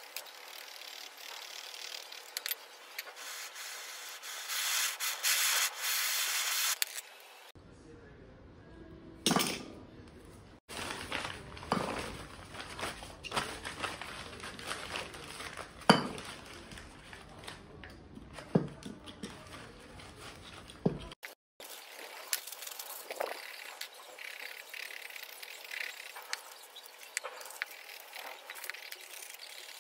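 Scraping and rubbing on a scooter's metal brake drum as old residue is cleaned off it by hand, with a few sharp knocks of tool on metal in the middle.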